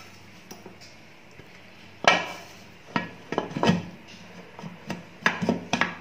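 Prestige aluminium pressure cooker lid being handled and fitted on the cooker: metal clanks and clinks. One sharp clank with a short ring comes about two seconds in, followed by a string of smaller knocks and rattles.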